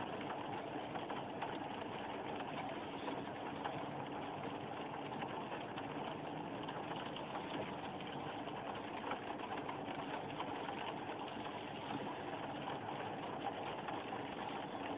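Steady rushing noise of heavy rain and car tyres through standing floodwater, heard from inside a moving car.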